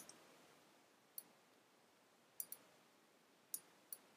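Faint clicks of a computer mouse: five short clicks, two of them in quick succession about halfway through, over low room hiss.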